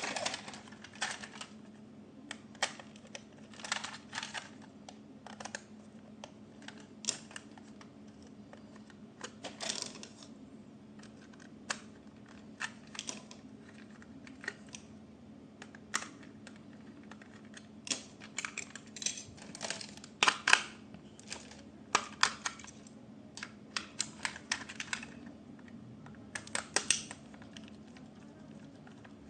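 Irregular light clicks and short rattles of small plastic toy parts and packaging being handled, over a faint steady low hum.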